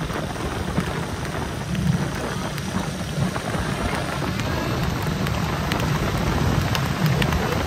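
Wind buffeting the microphone over the running engines of a pack of small motorcycles riding alongside, a steady, noisy rumble.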